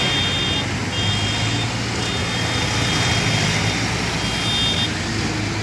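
Tractor engines running as the tractors pass in procession, a steady low rumble. Over it, an intermittent high electronic beeping comes in pulses under a second long.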